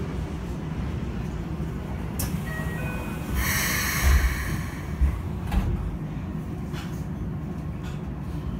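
Doors of a standing Keikyu 600-series commuter train closing: a few short electronic tones about two seconds in, then a burst of hiss as the doors slide shut, with thuds as they meet around four to five and a half seconds. A steady low hum from the standing train runs underneath.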